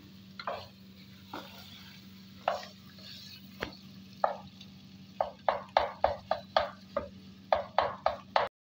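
Wooden spoon stirring and scraping spiced radish bhujiya in a non-stick pot. It starts with a few scattered strokes, then from the middle on comes a quick run of strokes, several a second.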